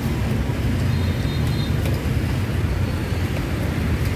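Steady low rumble of street traffic, with no single event standing out.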